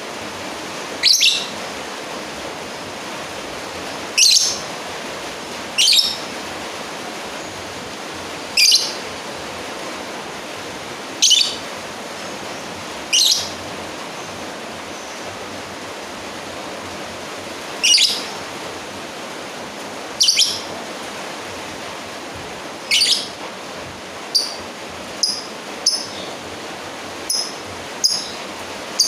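Lovebird giving short, sharp, high chirps, a rival-challenging call, one at a time and a few seconds apart, then quicker and clipped in the last few seconds. A steady hiss lies underneath.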